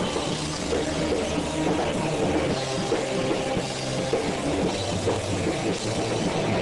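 Live rock band playing loud and steady, with a drum kit and electric guitars through amplifiers.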